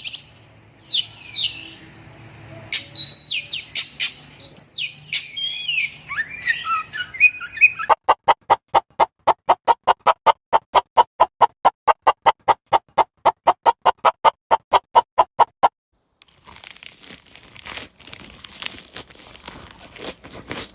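Small birds chirping and twittering in quick high gliding notes. About eight seconds in, they give way abruptly to a rapid, perfectly even series of short pitched calls, about five a second, which cuts off suddenly. After a brief gap come crunching, crackling clicks.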